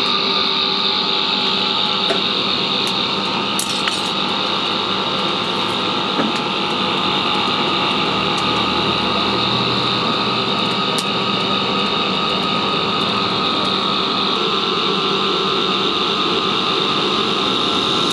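A small electric motor running steadily, a constant hum with a higher whine over it and a few faint clicks.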